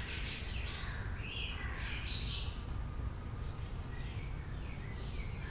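Several birds chirping, with many short, overlapping falling calls, over a low steady rumble.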